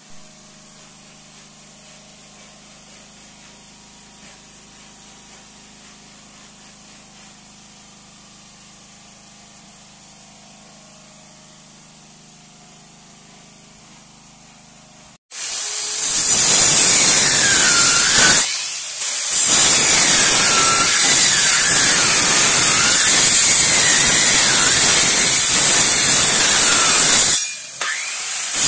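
A quiet steady hum for about fifteen seconds, then a handheld electric circular saw cutting along a teak plank: loud, with a whine that wavers in pitch as the blade works through the wood, easing off briefly twice.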